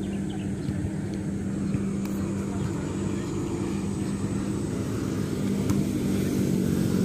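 Street traffic with a steady low engine hum at one unchanging pitch.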